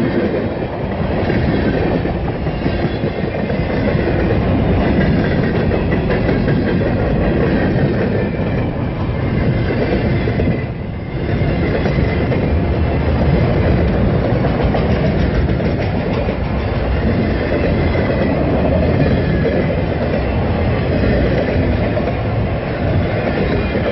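Freight train cars rolling past close by, first tank cars and then autorack cars, making a steady rumble and clatter of steel wheels on the rails. There is a brief dip in the noise about eleven seconds in.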